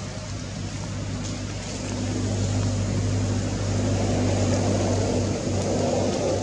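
A motor engine running steadily with a low hum, getting louder from about two seconds in.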